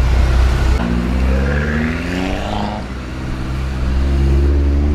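A modified car's engine and exhaust pulling away under acceleration. A heavy low rumble gives way to an engine note that rises, drops briefly a little before three seconds in, then climbs again.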